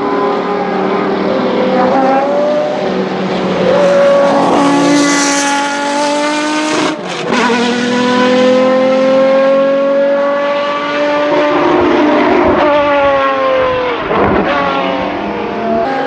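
Historic racing car engines at high revs passing on track. The pitch climbs and falls several times, with a brief sharp break about seven seconds in.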